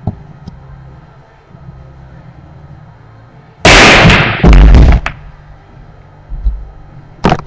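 Billiard balls struck and sent scattering across a pool table: a light click at the start, then about three and a half seconds in a loud crash of balls colliding and knocking against the cushions, overloading the microphone for over a second. A few sharp ball-on-ball clicks follow near the end.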